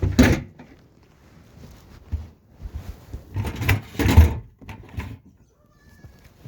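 A door in an animal pen being handled: two bursts of rattling and scraping, one at the start and another about three and a half seconds in.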